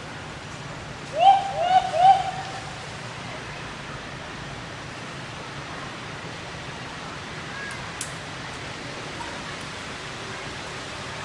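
An animal calling three times in quick succession about a second in, each call a short rising note, over a steady background hiss.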